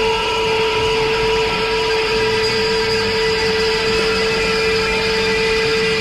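Noise music: a dense, steady drone of several held tones, the strongest a low hum, over a hiss and rumble.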